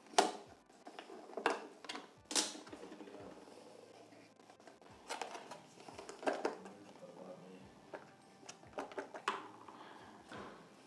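Small cardboard product box and its clear plastic lid being handled and opened: scattered taps, scrapes and rustles of card and plastic, the sharpest near the start and about two and a half seconds in.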